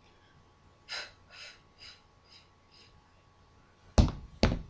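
A woman's breathing during the Pilates hundred: five short, hissy breath puffs, about two a second, growing fainter. Near the end come two loud, sharp knocks.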